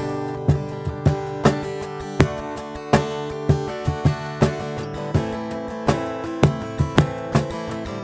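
Acoustic guitar strumming chords over a cajón beating a steady rhythm, about two strokes a second.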